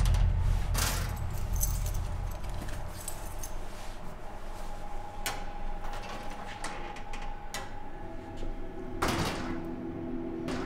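Metal locker being handled: scattered clicks and knocks of the door and its latch, the strongest about nine seconds in. A low rumble fades away over the first few seconds, and faint held tones come in midway and again near the end.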